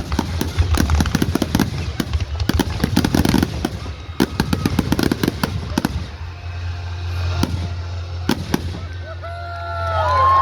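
Consumer fireworks going off in a rapid barrage of bangs and crackles for about six seconds, thinning to two single loud bangs. Whoops and cheers from people start near the end.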